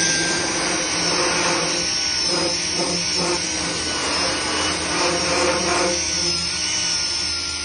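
Capri Tools 1 hp pneumatic right-angle die grinder running at high speed with a Roloc disc against a workpiece: a steady high whine over a loud hiss, with a rough grinding texture that comes and goes as the disc smooths the surface.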